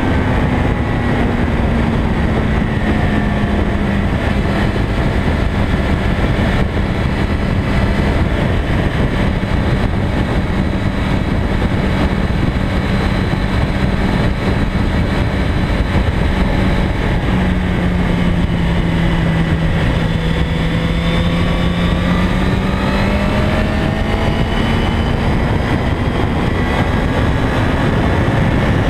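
Heavy wind rush over a GoPro mounted on a sport motorcycle's fairing at high road speed, with the bike's engine running steadily underneath. The engine note sinks a little in the first seconds, dips lower about two-thirds through, and rises again toward the end.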